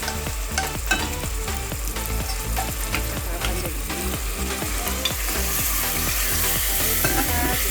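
Beef cubes frying in hot oil with onions and spices, sizzling steadily while being stirred, with frequent short knocks and scrapes of the spoon against the pot. The sizzle grows a little stronger in the second half.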